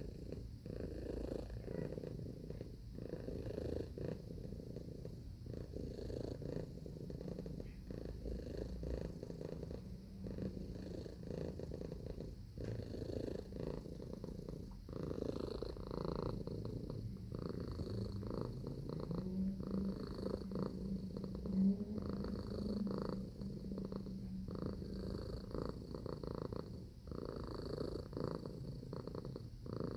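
Domestic cat purring steadily, a continuous low rumble close to the microphone, with a faint higher hum joining in for several seconds past the middle.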